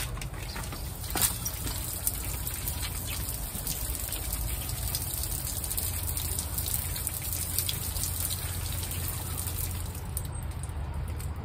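Misting heads of a plant-propagation misting system spraying water, a steady fine hiss with water trickling and dripping. A single sharp click sounds about a second in.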